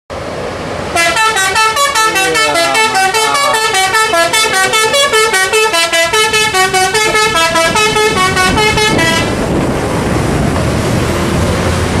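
Telolet horn on a tour bus playing a fast multi-tone melody, a rapid run of changing notes at about five a second, for about eight seconds. It stops about nine seconds in, leaving the bus's engine and road noise.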